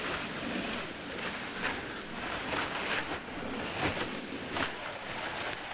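Footsteps in about six inches of snow, roughly two steps a second, with the rustle of clothing and brush brushing past.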